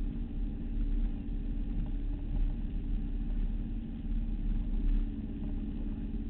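Motorboat engine running steadily under way, a constant drone over a low rumble, with water rushing past the hull.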